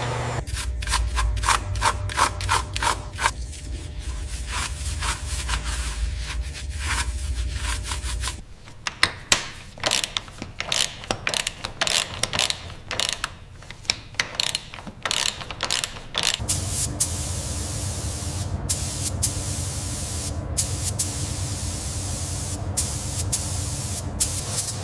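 Repeated rubbing or scraping strokes from a hand tool worked back and forth, about three a second, over a steady low hum. The strokes become irregular after about eight seconds and give way to the hum with a few sharp clicks about two-thirds of the way in.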